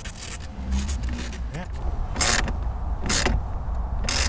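Socket ratchet clicking as it snugs up a 10 mm bolt, with three bursts of pawl clicks about a second apart in the second half.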